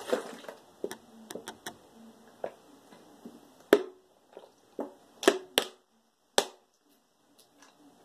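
Gulping from an upturned two-litre plastic bottle of fizzy cherryade: scattered gulps and small clicks of swallowing and of the plastic bottle, irregularly spaced.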